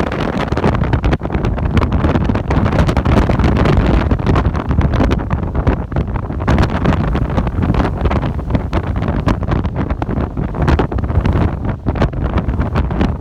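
Strong, gusting Berkara wind coming off the Karatau range, buffeting the microphone with loud, irregular low rumbling.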